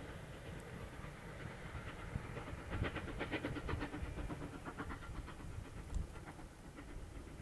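Steam locomotive NM25 pulling a train away, heard faint: a low rumble with runs of rhythmic chuffing and rail clatter.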